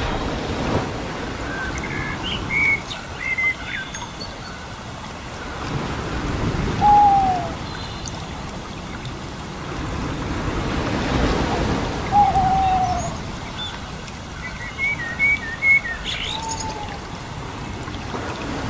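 Songbirds chirping and whistling over a steady rushing background noise that swells and fades, a recorded nature ambience. There are clusters of short high chirps, and a few clear falling whistles about 7 and 12 seconds in.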